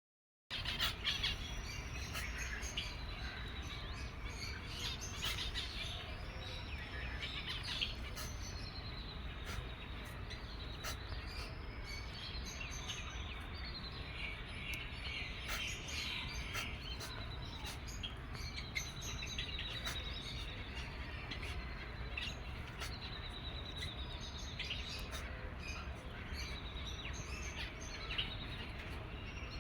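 Eight-day-old cockatiel chick giving high, buzzy, slightly falling calls, repeated every couple of seconds over a steady low hum.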